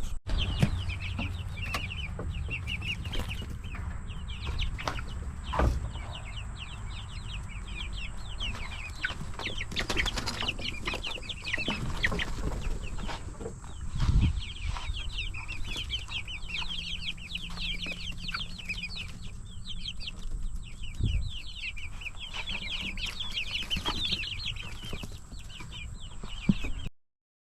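Backyard flock of Ameraucana and Easter Egger chickens calling and clucking, many short quick calls overlapping throughout, over a steady low rumble. A few dull thumps stand out, the loudest about halfway through, and the sound cuts off near the end.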